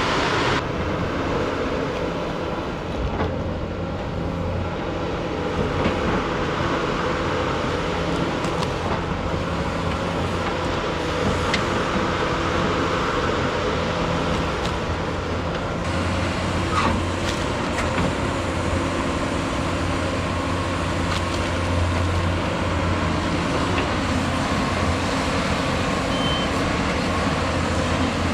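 CAT 320E excavator's diesel engine running steadily while digging, its drone growing stronger and easing off at times, with a few faint clicks.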